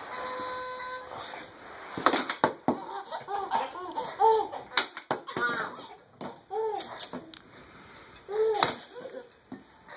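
Baby laughing in repeated bursts of squealing giggles, mixed with sharp clicks and knocks of plastic balls against a toy basketball hoop. A short steady electronic tone sounds at the start.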